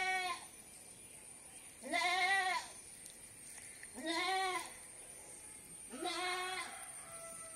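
A goat bleating four times, about two seconds apart, each call short and rising then falling in pitch.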